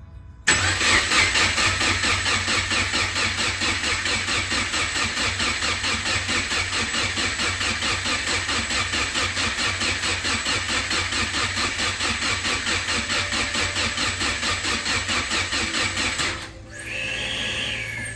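Rebuilt Subaru EJ25 flat-four engine running with an even, rapid pulse. It starts abruptly about half a second in and cuts off about sixteen seconds in.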